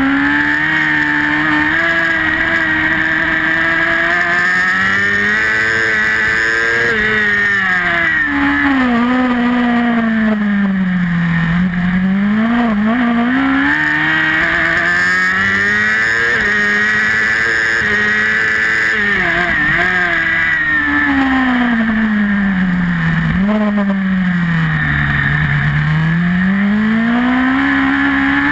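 Superbike engine at race pace, recorded onboard. Its pitch climbs in steps as it pulls through the gears, then sinks as the bike slows for corners, about a third of the way in and again near the end, and it revs back up on the exits.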